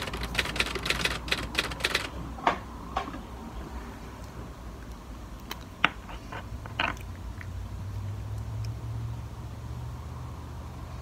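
Quick run of clicks and taps for about two seconds, then a few single clicks, from hands handling the recording phone and small plastic lip gloss tubes close to the microphone.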